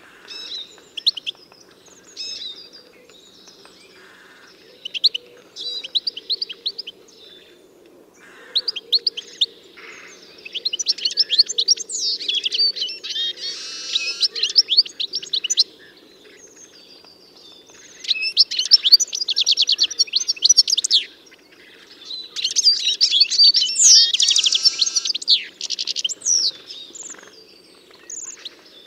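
Songbirds singing in bursts of rapid, high chirps and trills, with several long, busy phrases in the middle and later part. A faint steady low hum runs underneath.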